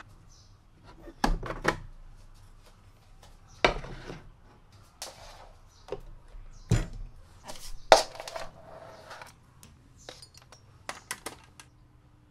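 Small household objects being handled and set down on a wooden desk: a run of irregular knocks, clinks and taps, the loudest about eight seconds in.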